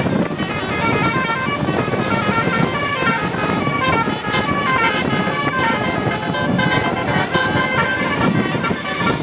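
An Indonesian tour bus's 'telolet basuri' multi-tone musical horn plays a quick melody of short, stepping notes, over a steady rumble of vehicle noise.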